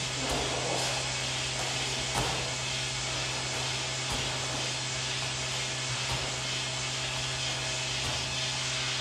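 Steady whooshing machine noise with a constant low hum, like a large fan. Faint thuds of a 9 kg wall ball striking the wall target and being caught come through it every two seconds or so.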